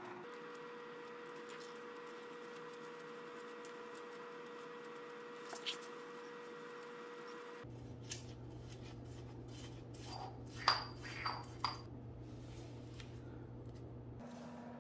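Faint metallic clicking and rubbing as a shift cable wire is poked and turned into a bicycle gearbox's shifter mechanism, with a cluster of small ringing ticks about ten to twelve seconds in, over a steady hum. The wire is not going in easily.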